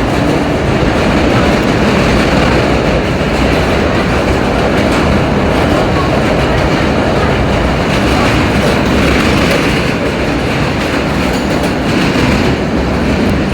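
R32 subway car running along the track, heard from inside the car: a loud, steady rumble of wheels on rail with motor and car noise.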